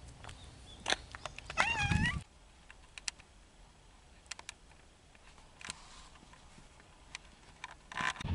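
A cat meows once, a short bending call about one and a half seconds in, with a few light clicks around it and a dull knock near the end.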